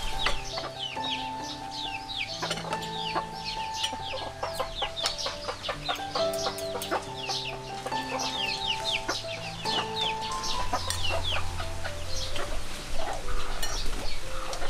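Chickens clucking with many quick, high falling chirps, over background music of slow, held notes.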